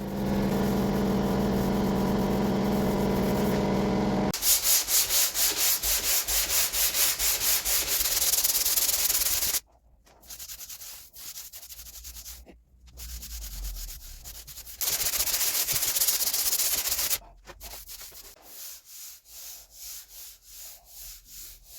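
Sanding on car door bodywork in short stretches that cut in and out. A steady machine hum runs for the first four seconds, then comes repeated rubbing strokes, about three a second, loud at first and quieter later.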